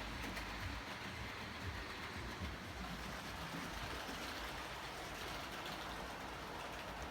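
H0-scale model train running along the track: a steady rolling noise with a low rumble and faint clicks.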